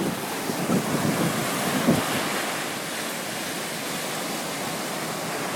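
Sea waves washing, with wind buffeting the microphone; a few louder low gusts come in the first two seconds.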